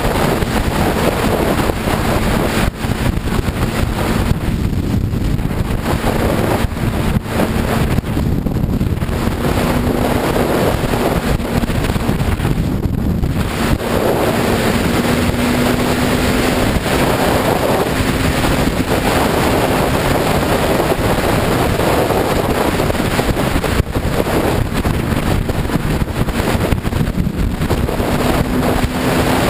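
Heavy wind rushing and buffeting on the microphone of a Suzuki GSX-R sport bike riding at freeway speed, with the motorcycle engine's steady drone underneath, its pitch edging slightly higher over the stretch.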